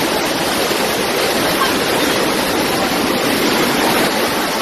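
Muddy floodwater rushing down a street in a fast torrent, a loud, steady noise of churning water.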